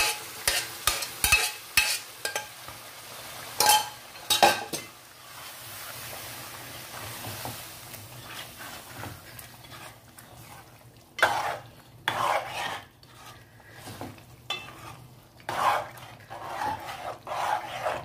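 A metal ladle stirring boiled mutton into thick masala in a metal pot, with the mixture sizzling. Sharp clicks and knocks of the ladle against the pot come in the first few seconds, a steady sizzle in the middle, and scraping strokes near the end.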